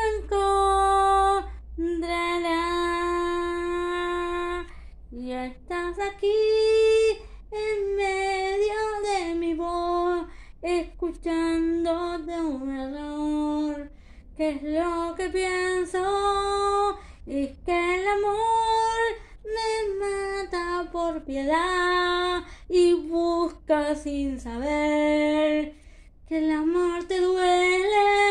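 A woman singing solo, without accompaniment, in long held and sliding phrases with short breaks between them.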